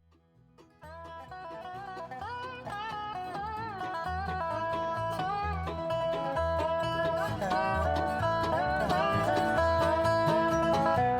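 Background bluegrass-style music with banjo and guitar over a steady bass beat, fading in about a second in after a brief silence.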